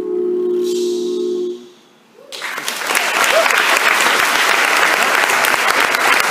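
A male a cappella group holds its final chord, which cuts off about a second and a half in; after a brief hush, audience applause starts and swells to a steady clapping.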